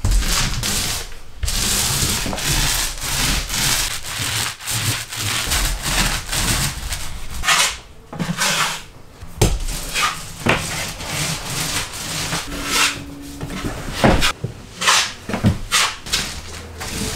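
Drywall taping knives and a roller scraping and rubbing over drywall as joint compound is spread and skimmed on, in repeated strokes with short gaps.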